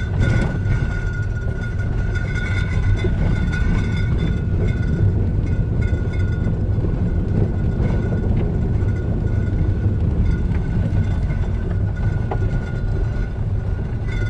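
Interior road noise of a 2011 Skoda Superb estate driving on a rough dirt road: steady low tyre and road rumble with a few faint knocks, which the driver puts down to bottles in the boot. No knock from the front suspension, freshly reassembled after the front struts were removed, is heard.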